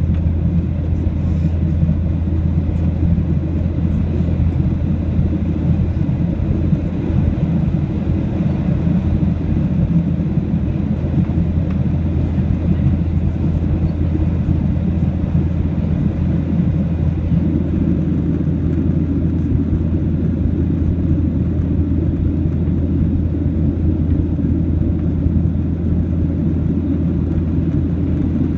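Steady jet cabin noise inside a Boeing 737-700 in its climb after takeoff, heard from a seat over the wing: an even, low rumble of the CFM56 engines and the airflow past the fuselage.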